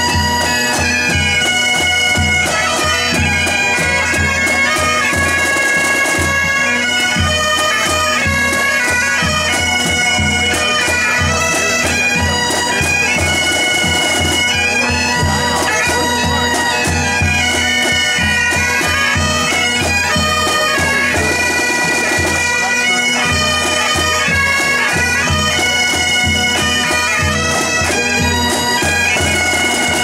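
Pipe band playing: Great Highland bagpipes sounding a tune over their steady drones, with a bass drum and snare drums beating along.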